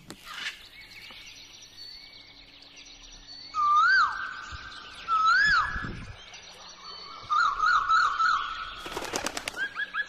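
Birds calling: two loud whistled notes, each rising and then falling, about a second and a half apart, then a quick warbling run of notes, over a chorus of fainter bird calls. A short rattle of clicks comes near the end.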